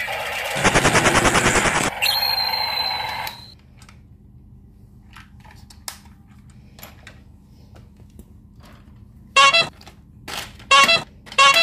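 Electronic sound effects from battery-operated toys. About half a second in, a rapid machine-gun-like rattle lasts just over a second, followed by a steady electronic tone. After a quiet stretch with light handling clicks, several short loud pitched toots come near the end.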